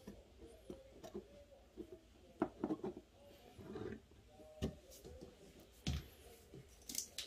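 Faint scattered clicks and light knocks as a lithium-ion battery cell and a flat-head screwdriver are handled and set against a wooden desk.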